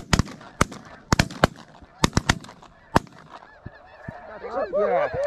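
A volley of shotgun fire from several hunters shooting into a flock of snow geese: about ten shots in the first three seconds, in quick groups of two or three, with a couple of fainter shots after. Snow goose calls build back up near the end.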